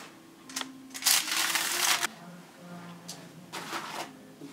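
Spatula scraping and lifting freshly baked saffron buns off a paper-lined baking tray: a click, then a rustling scrape of about a second, another click, and a shorter scrape near the end.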